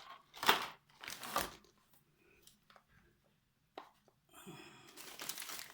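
Packaging being handled and torn open: two short rustles, a quiet pause, a sharp click near four seconds in, then soft steady rustling.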